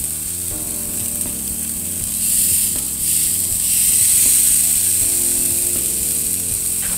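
Raw New York strip steaks searing on hot grill grates over charcoal: a loud sizzling hiss that swells between about two and five seconds in, as a second steak is laid down. Background music plays underneath.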